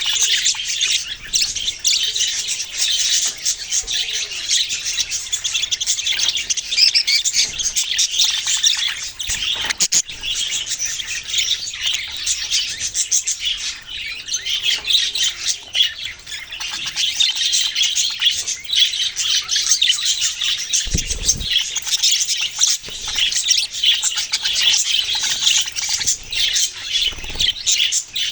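Many small pet birds chirping and chattering together without a break, a dense mass of overlapping high calls with occasional squawks.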